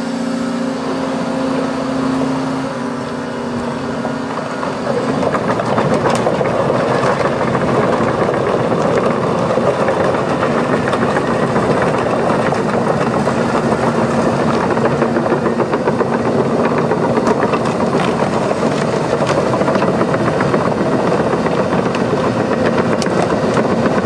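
Volvo EC250E crawler excavator running with a steady engine drone; about five seconds in, a louder, continuous clattering and rattling with many small knocks joins it and holds.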